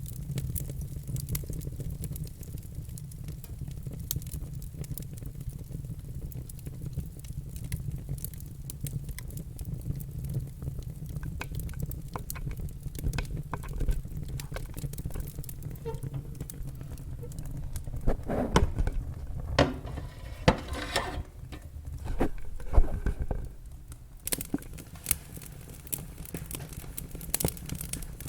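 Log fire crackling, scattered sharp pops over a steady low rumble of the flames; the pops come thicker in the second half.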